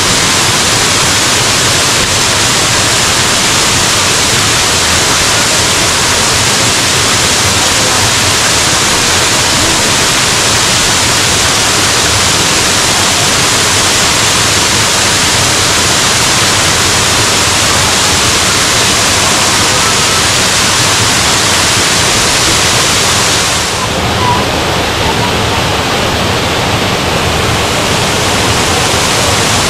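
Girlevik Waterfall's water pouring and splashing, a loud, steady rush. About three-quarters of the way through, the hissy top of the rush drops back a little.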